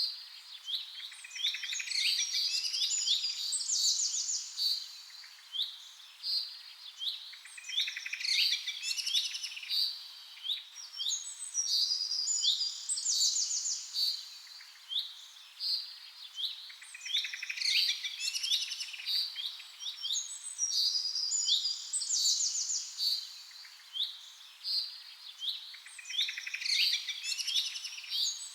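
Birdsong: small birds chirping and trilling in quick runs of high notes, in bursts that recur every eight or nine seconds, like a looped recording.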